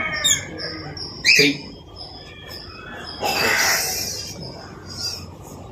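Birds chirping, with two short bird calls in the first second or so and a brief rushing noise lasting under a second about three seconds in.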